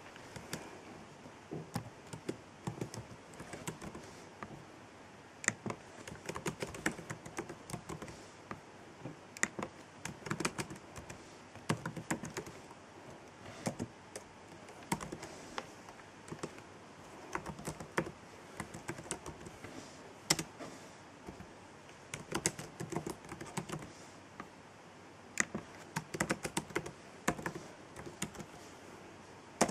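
Typing on an Acer laptop keyboard: quick runs of keystroke clicks, broken by short pauses.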